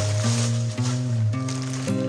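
Background music: an instrumental track of sustained pitched notes over a bass line that changes step by step, with a faint hissy rustle under it during the first second or so.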